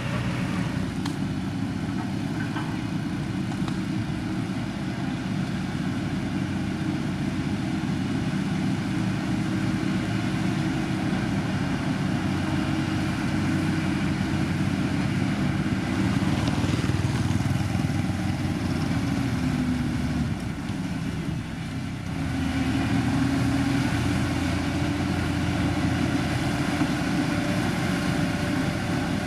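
Heavy diesel engine of road-building machinery running steadily under work. About two-thirds of the way through the engine note dips briefly, then comes back louder.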